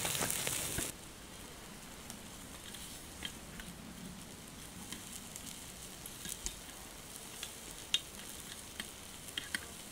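Meat-stuffed eggplants sizzling in a wire grill basket over charcoal embers. The sizzle is loud for about the first second, then fainter, with scattered sharp clicks and crackles.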